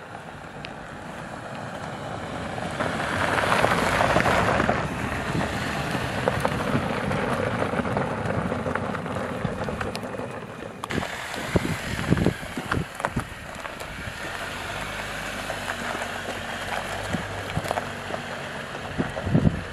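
Jeep Cherokee Trailhawk driving on a rocky dirt trail, its tyres crunching over gravel and its engine running, loudest about three to five seconds in as it passes close. Wind buffets the microphone, with a few low thumps in the second half.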